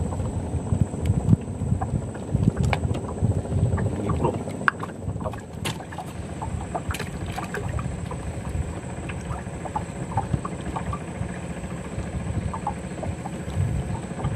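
Wind buffeting the microphone in irregular gusts on open water, with scattered short high chirps in the background.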